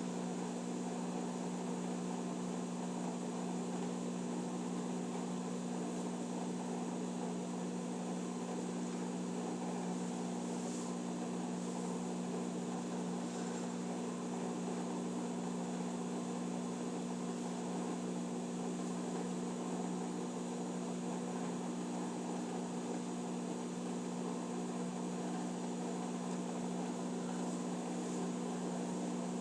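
Electrolux Eco Turbo top-loading washing machine running with a steady electrical hum and no rhythmic agitation or spin build-up, on a machine whose spin cycle fails to start.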